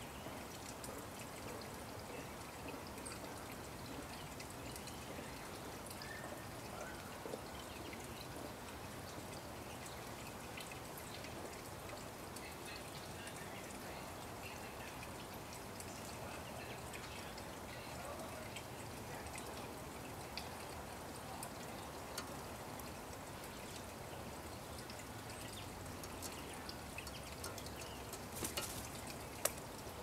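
Steady, faint garden ambience with a soft water-like hiss and a few faint bird chirps. Near the end comes a brief flutter and a sharp click.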